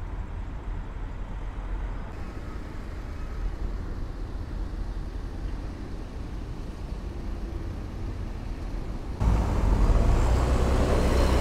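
City road traffic: cars, a bus and trucks passing with a steady low rumble of engines and tyres. About nine seconds in the sound suddenly becomes much louder and fuller, with heavy-truck engines close by.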